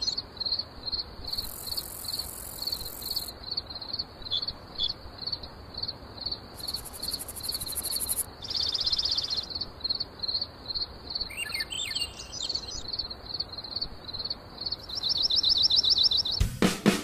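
Outdoor ambience of birds and insects: a high chirp repeating steadily about two to three times a second, with separate bursts of very high, buzzing insect trills and a few quick gliding bird chirps. Music begins just before the end.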